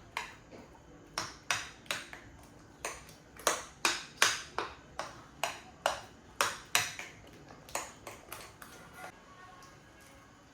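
An irregular series of sharp, ringing taps, about two a second, thinning out and stopping near the end.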